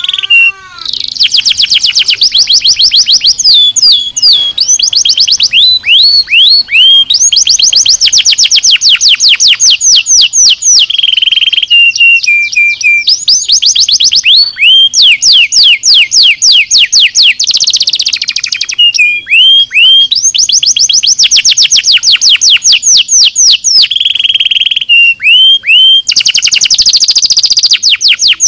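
Domestic canary singing loudly and continuously: fast trills of rapidly repeated high notes, switching from one trill to the next every second or two, with a few short breaks.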